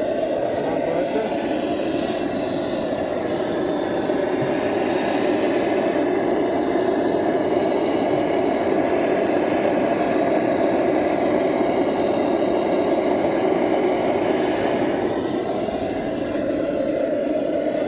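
Blowtorch burning steadily with an even rushing noise as it heats the glow bulb of a Lanz Bulldog hot-bulb engine before starting. It dips a little near the end.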